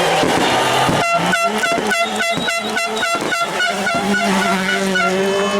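Air horn blown in a run of rapid blasts, about four a second, then held in one steady blast near the end.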